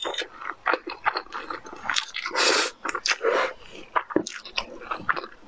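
Close-up eating sounds: chewing with wet mouth clicks and smacks, a noodle slurp about two seconds in, and a metal fork scraping and tapping across a baking tray.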